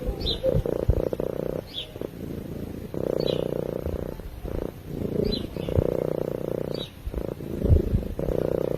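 Sleeping domestic cat purring, in long swelling stretches with short dips between them, about one every one and a half to two seconds.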